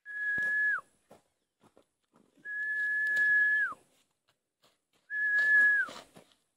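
Three whistled notes, each held at one steady high pitch and then sliding down at the end. The middle note is the longest.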